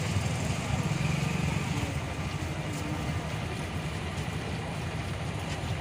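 Steady low rumble of street traffic with a motor vehicle engine running, with a few faint clicks.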